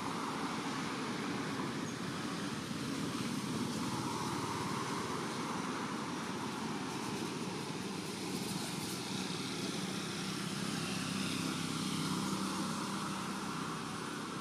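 Steady outdoor background hiss and hum with no distinct events. A faint, even motor-like drone comes up in the second half.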